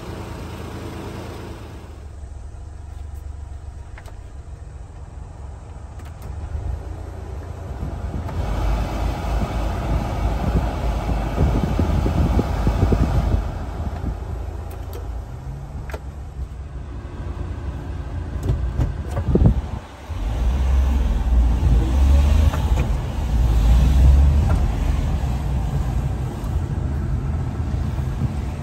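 The small three-cylinder engine of a 1997 Honda Acty kei truck idles, heard from inside the cab. The dashboard blower fan rushes for several seconds and then drops back near the middle. About two-thirds of the way through there is a single knock, followed by a louder low rumble.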